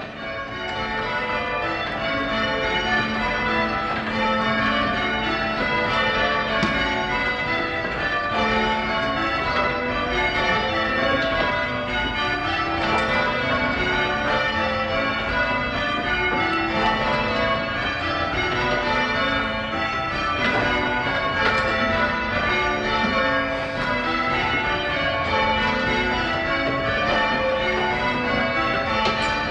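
Change ringing on a Gillett & Johnston ring of six church bells (tenor about 9 cwt, in A), the bells striking one after another in a continuous, evenly paced run of changes. It fades in over the first couple of seconds.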